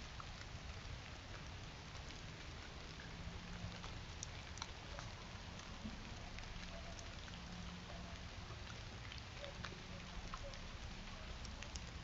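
Steady hiss of quiet night woods heard through a trail camera's microphone, with scattered faint ticks and small clicks throughout.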